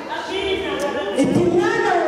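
Unaccompanied singing voice, with held and gliding notes and no instruments.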